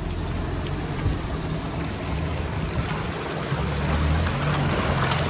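Shallow river water rushing and trickling over rocks, a steady wash of noise, with a low steady hum underneath.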